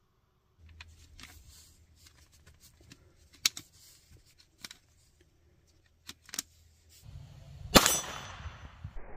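Light, sharp clicks of .22 LR cartridges being pressed into a translucent plastic magazine. Near the end comes a single loud gunshot from the Intratec Tec-22 .22 LR pistol, fired outdoors.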